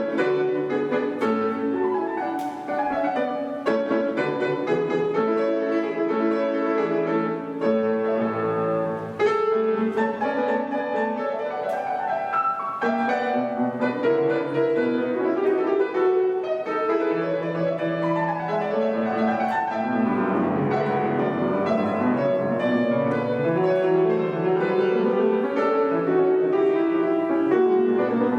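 Solo piano playing a classical piece, with a steady stream of notes in both hands and no pauses.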